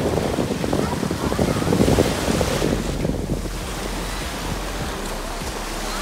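Sea waves washing onto a beach, with wind buffeting the microphone. It is loudest and roughest in the first three seconds, then settles to a steadier wash.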